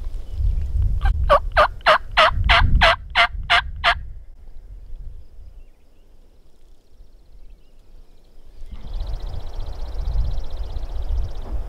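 A run of about eleven turkey yelps, evenly spaced at roughly three or four a second, each dropping in pitch. Wind rumbles on the microphone under them. After a quiet spell, a steady, high, fast-pulsing buzz and more wind rumble start late on.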